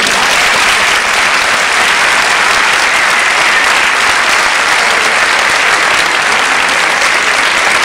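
Audience applauding steadily, a dense clapping that fills the hall.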